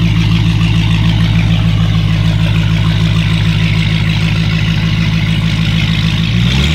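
Dodge Challenger SRT Hellcat's supercharged V8 idling with a steady pulsing beat as the car rolls slowly forward into stage, its note shifting briefly near the end.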